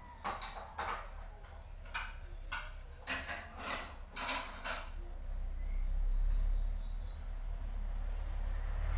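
Dishes and kitchen things being handled, a string of short clattering and scraping noises over the first five seconds. Then a bird chirps quickly several times over a low rumble.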